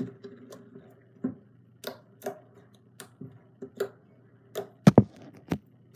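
Glitter slime being pressed and squished with the fingers on a tabletop, giving irregular clicking and popping sounds about twice a second, with the loudest double pop about five seconds in.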